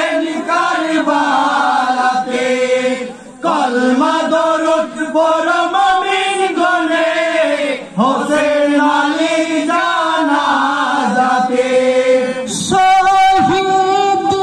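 Men's voices chanting a Bengali marsiya, a Muslim elegy for the martyrs of Karbala, in long, drawn-out sung phrases with short breaks for breath. Near the end the chant shifts abruptly to a steadier held note.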